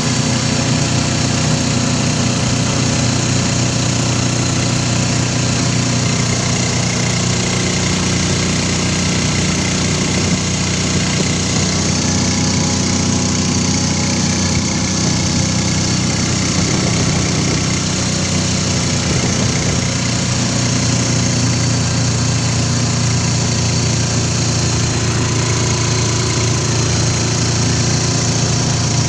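Motorcycle engine of a tricycle (motorcycle with sidecar) running steadily while riding, heard from inside the sidecar, with a steady hiss of passing air and road under it.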